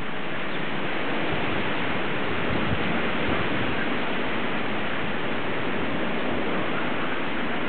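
Gale-force wind rushing steadily, a dense, even hiss with no breaks.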